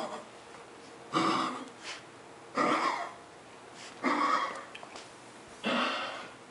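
A sick pet hacking out harsh, throaty coughs, five in a row about every second and a half, in a bout of illness where it also brings up clear fluid.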